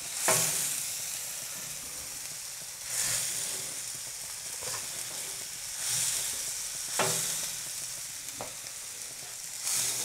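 Smashed beef burger patties sizzling on the hot grill as they are chopped into small pieces: a steady sizzle that swells every few seconds, with a few light knocks.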